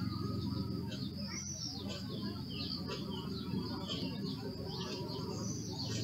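Foraging bees buzzing with a steady low hum, while songbirds chirp and twitter repeatedly in high, quick, sweeping notes over it.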